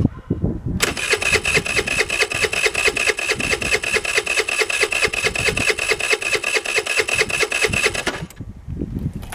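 Gasoline scooter's electric starter cranking the engine for about seven seconds in a quick, even pulse, then stopping suddenly without the engine catching. The scooter is hard to start and will not fire without starting fluid.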